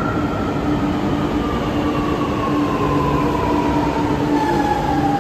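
Electric metro train pulling into the platform and slowing, its motors giving a whine that falls steadily in pitch over a continuous hum and rumble.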